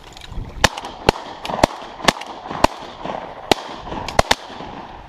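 A volley of shotgun blasts from several duck hunters firing together: about eight shots over some four seconds, unevenly spaced, with two nearly at once near the end.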